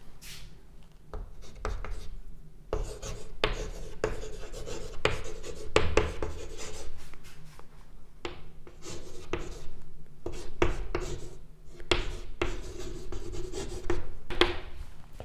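Chalk writing on a blackboard: a run of short, irregular scratching strokes and taps as the letters are written.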